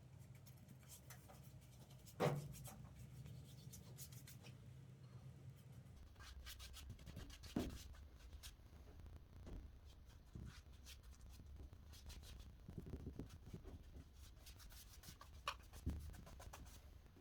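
Quiet hand work on timber: faint rubbing and scratching over a low hum, with a few light knocks.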